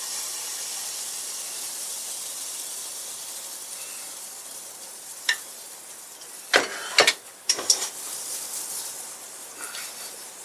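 Pancake batter sizzling as it is poured into a hot stainless steel skillet over a gas flame: a hiss that starts suddenly and slowly fades. A few sharp knocks past the middle from the glass mixing bowl being scraped out over the pan and set down.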